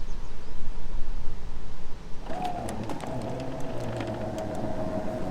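A motor on the motorhome starts about two seconds in, rising briefly in pitch and then running with a steady whine over a low hum, after about two seconds of low noise.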